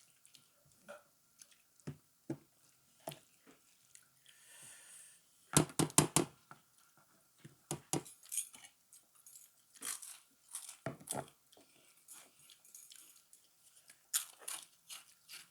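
A person eating close to the microphone: chewing and crunching food, with scattered sharp clicks and a cluster of loud crunches about five and a half seconds in.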